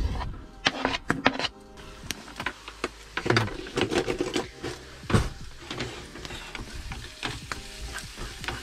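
Chopped onion scraped off a chopping board with a knife into a small pan of hot vegetable oil and stirred with a wooden spatula: scattered clicks, scrapes and knocks over the onion starting to fry. Background music plays along.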